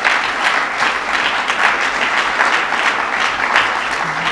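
Audience applauding: many hands clapping at a steady level, easing slightly near the end.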